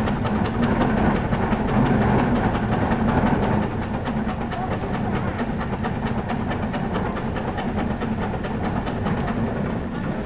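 Steam donkey, a steam-powered logging winch, running under load as it hauls logs in on its main line: a continuous hiss of steam with a fast, even beat of exhaust puffs, easing off slightly about a third of the way in.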